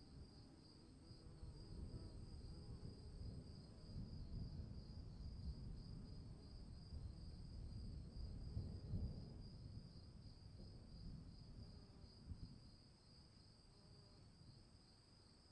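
Crickets chirring steadily, high and pulsing, over a low rumble of distant thunder that swells about halfway through and then fades away.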